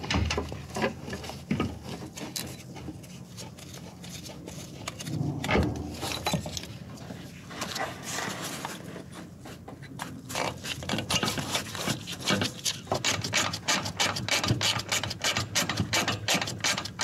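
Metal knocks and scrapes as an automotive AC compressor is set back onto its engine mount. About halfway through, a socket ratchet starts clicking rapidly and steadily as a mounting bolt is run in.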